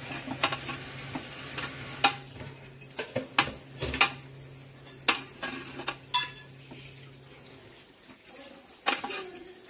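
A metal spoon pressing and levelling drained rice in a pressure cooker pot, with scattered clinks and scrapes against the pot and one sharper ringing clink about six seconds in. A steady low hum stops near the end.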